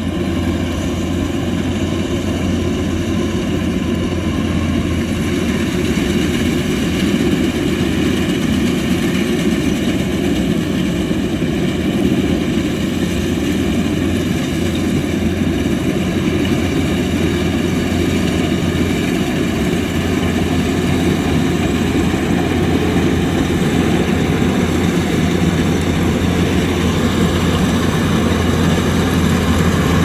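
Diesel engine of a Kubota combine harvester running steadily at a constant speed, a continuous loud mechanical drone.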